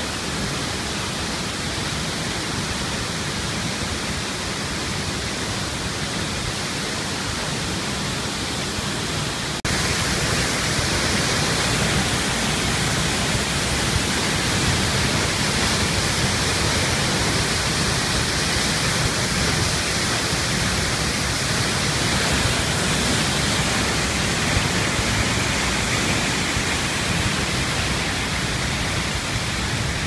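Waterfall rushing steadily, a dense even noise of falling water; it steps up louder about ten seconds in.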